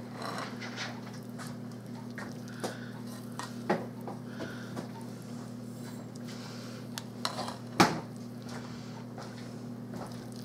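Metal spoon stirring potato salad in a glass bowl, with scattered clinks of the spoon against the glass, the sharpest about eight seconds in. A steady low hum runs underneath.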